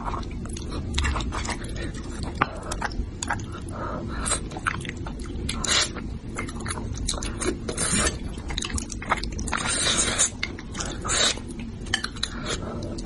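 Close-miked mouth sounds of a person eating spicy braised fish: wet chewing and smacking, with several louder, hissy sucking sounds.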